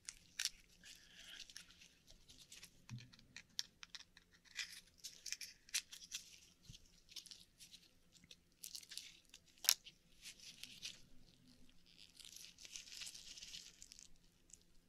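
Faint clicks, crackles and scraping from hands working an Akoya oyster open to get at its pearl, with a sharp click about ten seconds in.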